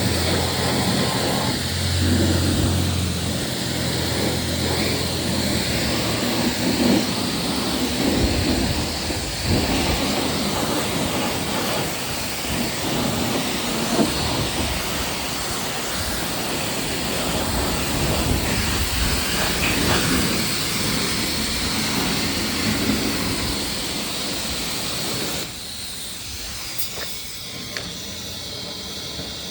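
2022 Harley-Davidson Low Rider ST on a ride: its Milwaukee-Eight 117 V-twin runs for the first few seconds, then mostly rushing wind and road noise. The sound drops off suddenly near the end.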